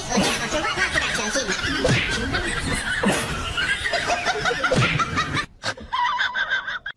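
Several people laughing and snickering, with a little talk mixed in. The laughter breaks off suddenly about five and a half seconds in.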